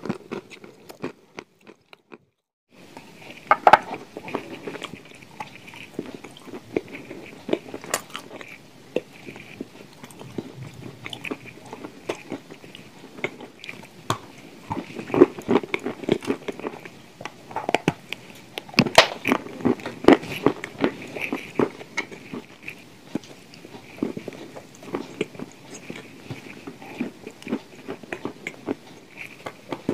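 A person biting and chewing a crumbly chunk close to the microphone, with many sharp crunches and chewing sounds. The sound drops out briefly about a second in and picks up again about three seconds in.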